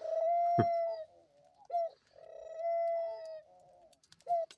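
Dove cooing: a short note followed by a long, drawn-out coo, repeated twice at an even pace. About half a second in there is also a brief falling glide.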